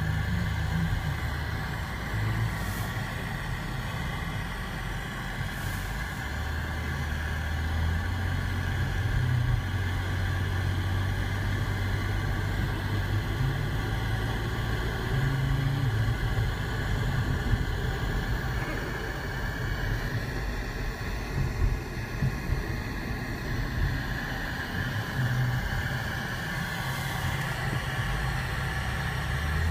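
Engine and road noise of a moving car, heard from inside the cabin: a steady low rumble whose pitch shifts up and down as the car slows and speeds up.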